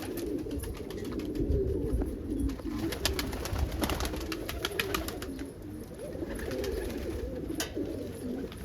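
Homing pigeons cooing in a loft, a continuous overlapping murmur of low coos, with scattered sharp clicks through the middle.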